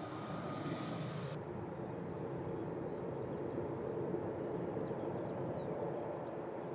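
Steady low rumble of airliner jet engines on the airfield, with faint bird chirps over it. About a second and a half in, the higher hiss and chirps cut off abruptly and the rumble carries on.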